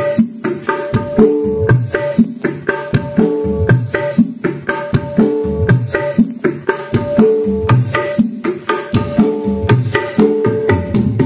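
Music with strong drum hits and a pattern that repeats about every two seconds, played loud through two ACR 15-inch woofers, two ACR 10-inch mid drivers and tweeters driven by a freshly built OCL Hi-Fi amplifier kit with three sets of output transistors, as a sound check of the amplifier.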